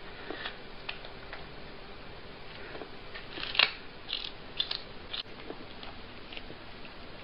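A cat biting and chewing watermelon flesh: a series of short crunches, the loudest a little after three and a half seconds in, followed by a quick run of several more.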